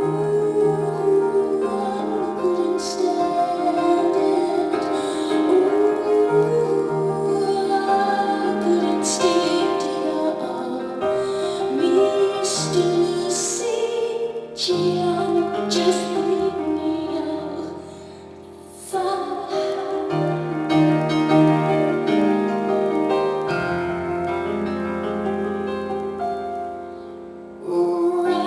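Live music from a concert: piano and keyboards over a bass line, with occasional cymbal or drum hits and a woman's singing voice.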